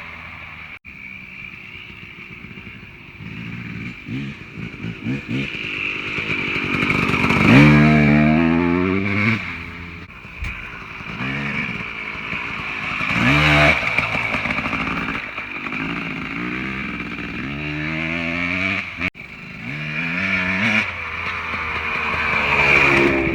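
Two-stroke dirt bike engine under way, its pitch climbing sharply as the throttle is opened four times and dropping back to a lower run in between.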